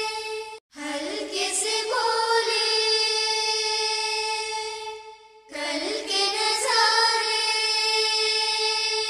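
Background music with singing: long held notes with rising glides into them. It breaks off into a short silence near the start and dips again about halfway.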